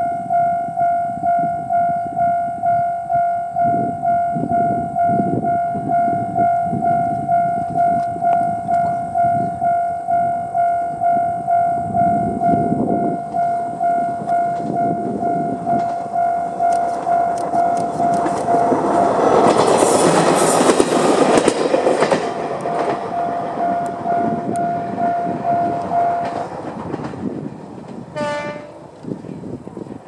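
Japanese level-crossing warning bell, an electronic JR Central-type tone, ringing steadily about twice a second. A Moka 14 diesel railcar passes over the crossing about two-thirds of the way through, loudest then, its wheels clicking over the rail joints. The bell stops a few seconds before the end as the barriers lift.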